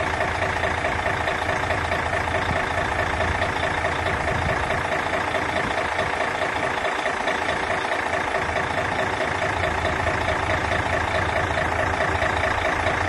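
Mercedes-Benz Actros 4341's V6 diesel engine idling steadily, with an even, rapid pulse.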